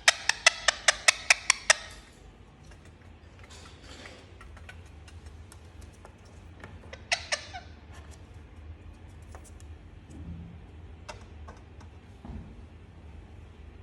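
Indian ringneck parakeet giving a rapid run of about nine short, sharp calls, about five a second, then two more a little past the middle, with faint clicks between.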